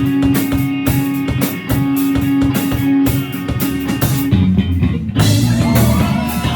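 A live rock band playing, with electric guitars and a drum kit keeping a steady beat. About four seconds in the drum hits stop, and a new section with bass and guitar lines begins about a second later.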